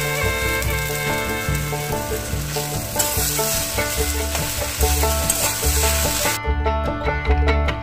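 Okra, potato and spring onions sizzling in hot oil in a kadai as a steel spatula stirs them. The sizzle cuts off suddenly about six seconds in, leaving background music with a steady bass beat that plays under it throughout.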